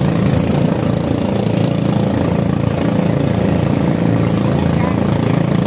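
Outrigger boat (bangka) engine running steadily, an even low hum that does not change, with a constant hiss over it.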